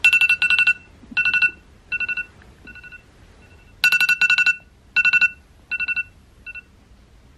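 Electronic trilling ringtone: a high tone pulsed very rapidly, in short bursts that start and stop irregularly, loudest at the start and again about four seconds in.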